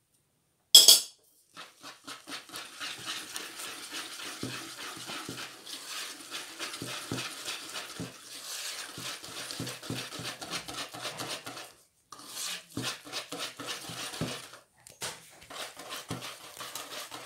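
A sharp clink about a second in, then a wire whisk beating thick pancake batter against the sides of a bowl in quick, rapid strokes, with two short pauses. The batter is being beaten until no lumps of flour are left.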